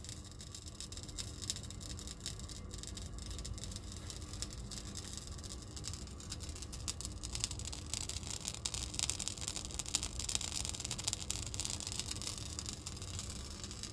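Candle wicks crackling and sputtering: a steady run of fine, faint clicks over a low room hum. The practitioner takes a candle's sparking as a sign of danger in the ritual work.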